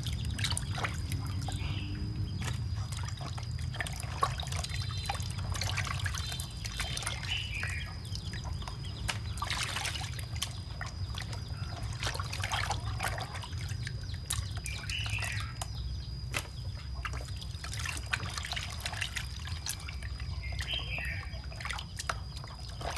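Running water trickling and splashing as skinned frogs are washed by hand in a basin, with small knocks and clicks of handling.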